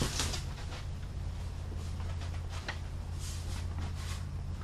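Light scuffing and rustling of large styrofoam raft boards being lifted and carried, over a steady low hum.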